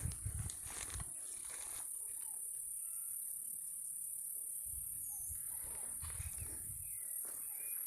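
Steady high-pitched drone of insects shrilling without a break, with a few faint bird chirps. Low thuds come in the first second and again in the second half.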